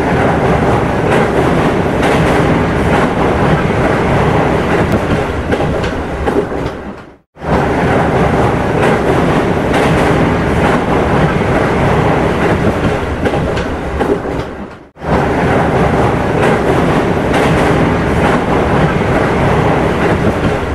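Electric metro train running along its track with a steady rumble and rattle, in three separate stretches of about seven seconds, each cut off abruptly by a brief break.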